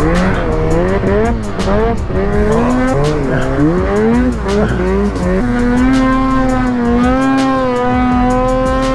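Snowmobile engine revving up and down as the sled rides through deep powder, then holding a steady high rev for the last few seconds.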